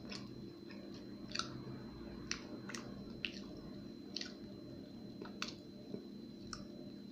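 Faint chewing of a chocolate-coated alfajor filled with dulce de leche, its crumbly, sandy biscuit giving about ten irregular sharp crackles as it is eaten.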